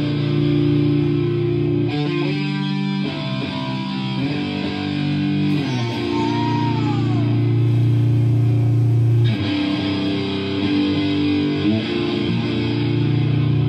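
Live rock band playing an instrumental passage: electric guitars and a bass guitar holding chords that change every few seconds, with a high guitar note sliding down about halfway through.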